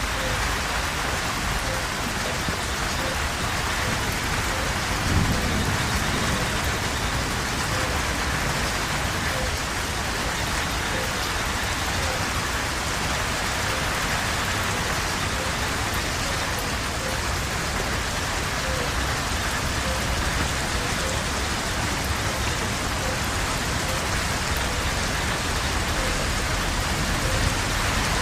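Steady heavy rain, an even hiss of falling drops, with one brief low thump about five seconds in.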